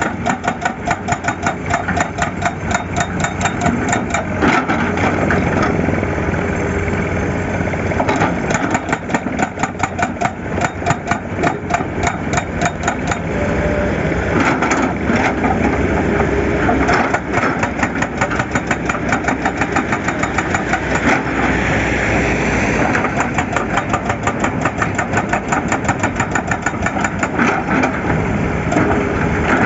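Excavator's diesel engine running steadily, with a rapid, even pulsing.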